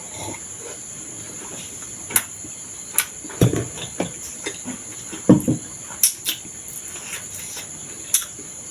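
Eating noises: scattered short clicks and smacking mouth sounds, a few seconds apart, while chewing and slurping thukpa and momos. A steady high-pitched chirring runs underneath.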